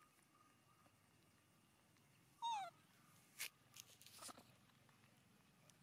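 One short, high call from a baby macaque that falls in pitch, about two and a half seconds in, followed by a couple of sharp clicks.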